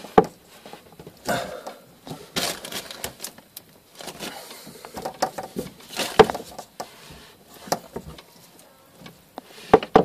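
Irregular clicks, knocks and rustling as hands handle the plastic washing-machine hoses and tap fittings. The sharpest knock comes about six seconds in, and a few more come near the end.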